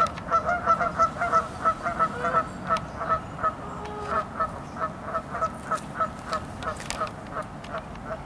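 Canada geese honking in a rapid series of short calls, about four a second, growing fainter toward the end.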